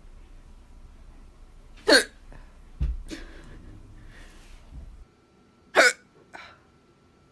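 A person hiccuping: two loud, short hics about four seconds apart, each followed by a softer sound.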